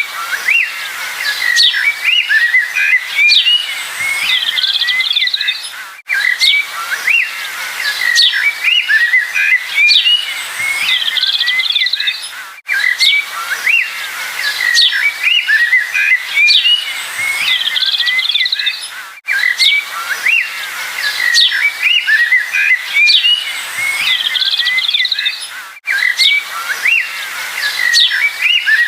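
A chorus of small songbirds chirping and twittering, full of quick, high, sliding notes. It is a short recording looped about every six and a half seconds, with a brief dip in level at each seam.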